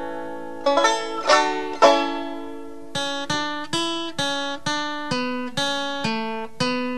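Background music on a plucked string instrument, banjo or guitar, picking single notes at about two a second, each ringing and fading.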